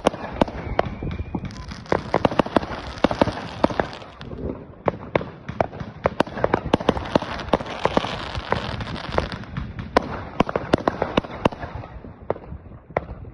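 New Year's Eve fireworks and firecrackers going off: a rapid, irregular string of sharp bangs over a dense crackle, with the bangs thinning out near the end.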